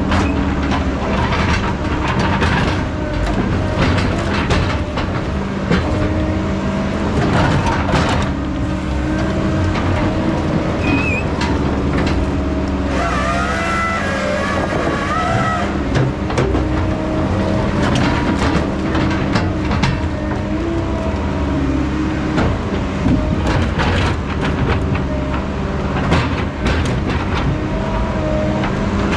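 Heavy diesel logging machinery running steadily under load, with frequent metal clanks and knocks. About halfway through there is a high squealing whine lasting a few seconds.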